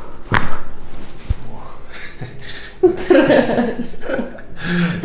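A person chuckling and speaking, with a sharp snap about a third of a second in.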